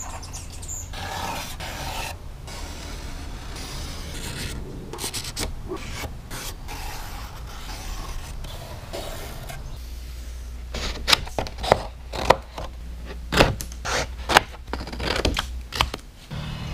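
Felt-tip marker scratching along cardstock as a template is traced, with paper rustling and rubbing. Later, scissors snip through the cardstock in a quick series of sharp cuts.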